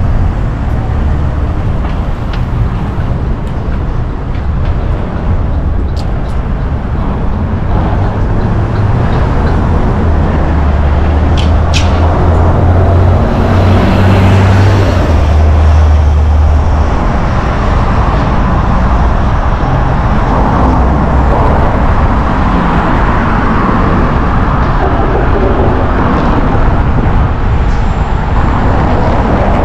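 City street traffic heard from a moving bicycle: cars and buses running and passing, over a steady low rumble that swells a little around the middle. There are a couple of sharp clicks about 6 and 12 seconds in.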